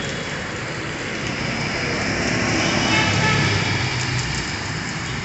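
Heavy rain pouring onto a waterlogged road as traffic drives through it, tyres swishing through standing water. Auto-rickshaw and car engines pass close, swelling to their loudest about halfway through, then easing off.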